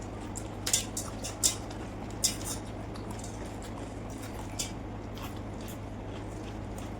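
Eating sounds from a meal of water rice (pakhala) with fish fry: chewing and handling of the food, with three sharp clicks in the first two and a half seconds and a few fainter ones later.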